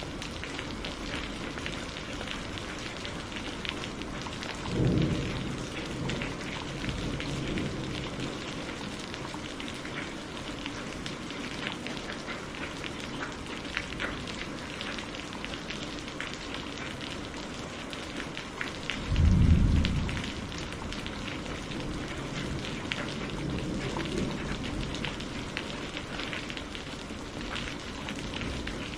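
Steady rain with pattering drops, and two short rolls of thunder: one about five seconds in and a louder one about two-thirds of the way through.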